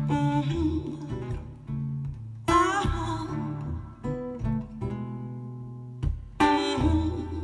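Recorded music with strummed, plucked guitar chords and no singing, played back over a pair of Totem Sky bookshelf speakers driven by an EL84 push-pull valve amplifier. Fresh chords ring out near the start, about two and a half seconds in, and again near the end.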